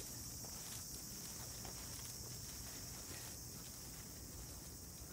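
Quiet outdoor ambience: a steady high-pitched insect chirring, with faint scuffing footsteps on concrete.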